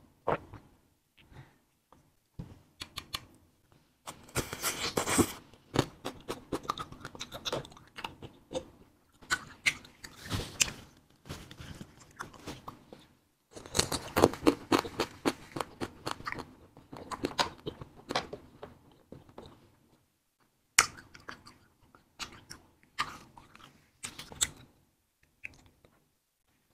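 Close-miked chewing and biting of fruit-filled wax candy: many quick clicking mouth sounds in dense runs, with a brief pause about three-quarters of the way through and then scattered sharper bites.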